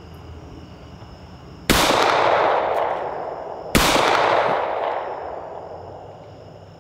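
Two .45 ACP pistol shots from a SIG P220, about two seconds apart. Each echoes and fades over a couple of seconds.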